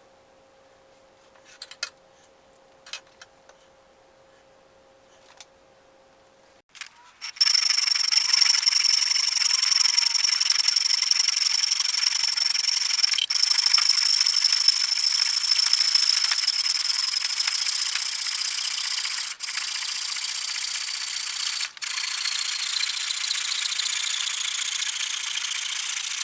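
A power grinder working the steel of a knife blade. It starts loud about seven seconds in, a steady hiss with a high whine that drifts slowly lower toward the end, and it breaks off for a moment three times. Before it, a faint hum and a few light clicks.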